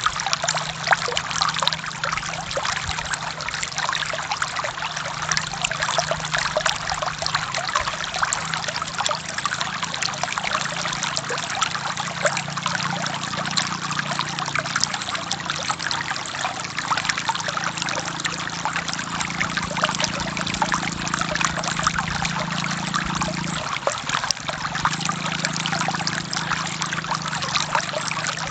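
Forest stream flowing steadily, a dense babble of small splashes and trickles with a low burbling undertone that dips briefly near the end.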